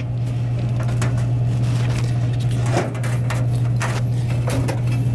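A steady low hum with scattered light clicks and rustles of hands fitting parts around a vending machine's condenser coil.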